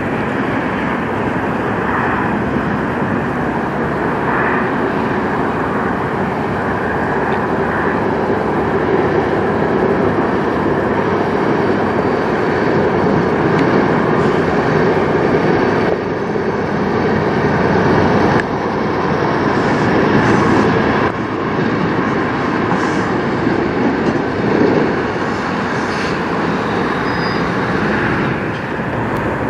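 Kenworth semi truck's diesel engine running at low speed as the tractor-trailer moves through the lot, mixed with steady road and traffic noise. The sound shifts abruptly a few times after about halfway.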